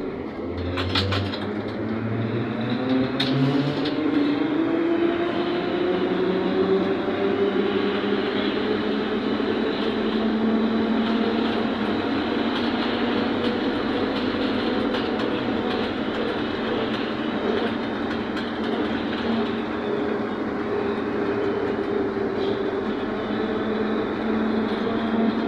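ZiU-682G trolleybus heard from inside the cabin. Its electric traction motor whines, rising in pitch over the first ten seconds or so as the trolleybus gathers speed, then holding steady at cruising speed over road and body noise. A couple of short clicks come near the start.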